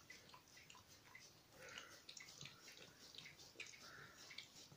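A dog licking a plastic chopping board clean of food: faint, irregular little clicks and smacks of the tongue on the plastic.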